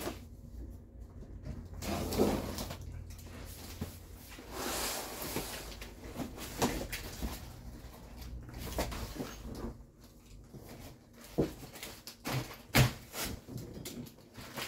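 A large cardboard cot box being handled and opened: a box cutter slitting it, the box laid flat on the floor and its lid lifted. Irregular scraping and rustling of cardboard, with several sharp knocks in the second half.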